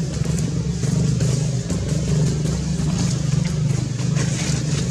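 A steady engine hum, like an idling motor vehicle, holding one pitch throughout, with scattered faint ticks over it.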